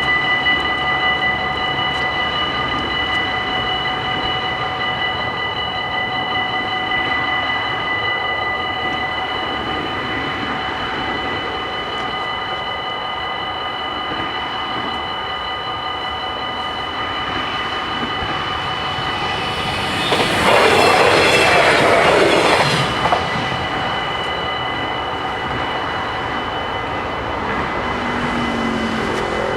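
Dutch level-crossing warning bells ringing steadily while the barriers are down. About two-thirds of the way in, an Arriva GTW electric multiple-unit train rushes past the crossing for two or three seconds, louder than the bells.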